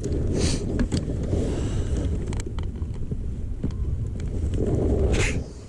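Wind buffeting the microphone, a steady low rumble, with two brief louder swishes, one about half a second in and one near the end.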